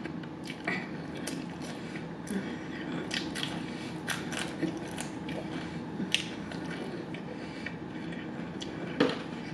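Close-up crunching and chewing of crispy spicy fried chicken, an irregular string of sharp crackles as the crust breaks, with the loudest crack near the end.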